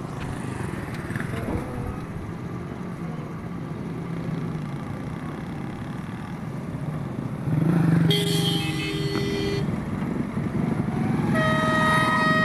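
A steady low rumble, then about eight seconds in a short honk from a vehicle horn. Near the end, a PHA-20 diesel locomotive's horn starts sounding one steady, unwavering note.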